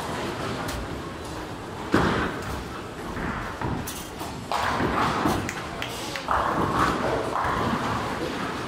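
Bowling alley din: a bowling ball lands on a lane with a sharp thud about two seconds in. It is followed in the second half by the crashing clatter of pins being struck, with voices in the large hall.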